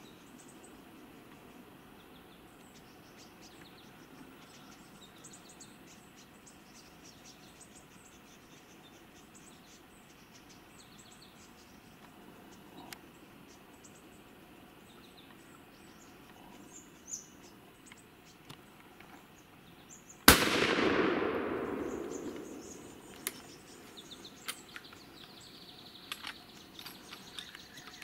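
A single hunting rifle shot about twenty seconds in: a sharp crack followed by about two seconds of echo dying away. Before it, faint insect and bird chirping.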